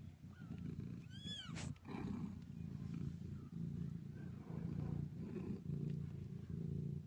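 Mother cat purring in a steady pulsing rumble while her young kittens nurse, with a short high kitten mew that rises and falls about a second and a half in.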